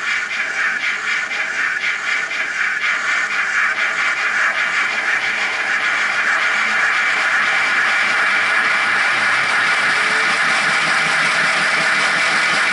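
Recorded steam-locomotive sounds of a GWR 57xx pannier tank played through a model locomotive's ESU LokSound V4 decoder speaker. A faint rhythmic beat runs through the first few seconds, then gives way to a steady, louder steam hiss.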